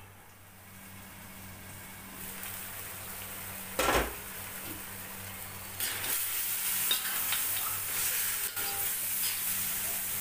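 Monitor-lizard meat in a turmeric curry sizzling in a steel wok as its sauce cooks down, with a metal spatula and then a fork scraping and stirring against the wok. A single loud knock about four seconds in; the sizzle and scraping get louder from about six seconds in.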